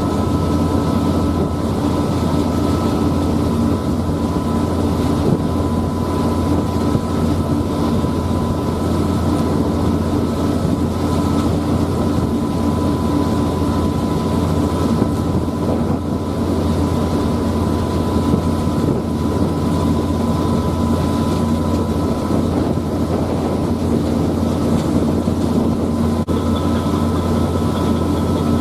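Passenger ferry's engines running steadily, a loud, even drone with a low hum and a faint steady whine.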